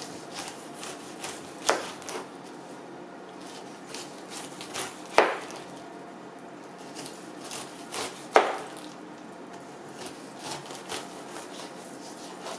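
Kitchen knife slicing the rind off a whole pineapple, with small crunching clicks as the blade cuts through the tough skin. Three sharp knocks about three seconds apart as the blade comes down through each strip onto the plastic cutting board.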